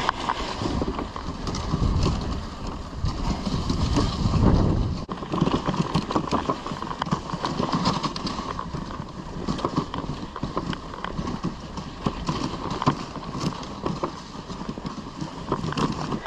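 Risdon Euro Spring dog sled running over packed snow behind two dogs: the runners hiss and scrape, with a steady patter of small knocks and rattles from the sled and the dogs' footfalls. A heavier low rumble fills the first five seconds.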